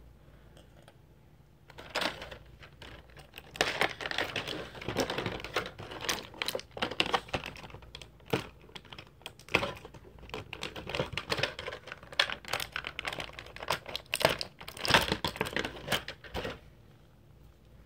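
Rapid, irregular clicking and rustling of hands handling small hard plastic action-figure parts, starting about two seconds in and stopping shortly before the end.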